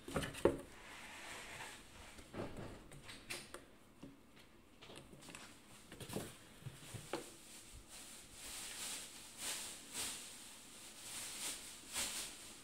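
Cats playing in and around a cardboard box: scattered soft knocks and thumps, with a run of scratchy cardboard rustles in the second half.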